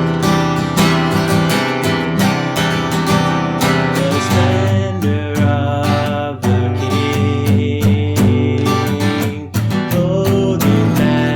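Acoustic guitar strummed in a steady rhythm, playing an instrumental piece.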